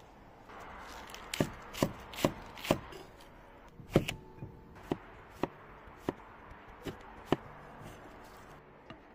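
A cleaver chopping a green squash on a wooden cutting board: a series of sharp knocks of the blade hitting the board, about two a second at first and more spaced out later, the loudest about four seconds in.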